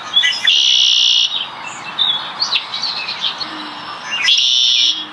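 A bird calling: short high chirps and whistles, broken by two harsh trills each under a second long, one about half a second in and one near the end.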